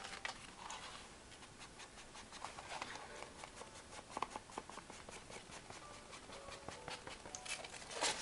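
Faint scratchy rubbing and light taps of a craft tool working colour across cardstock, with a brief louder scrape near the end.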